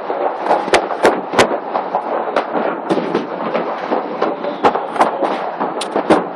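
New Year fireworks and firecrackers going off all around: a continuous dense crackle with a dozen or so sharp bangs at irregular intervals.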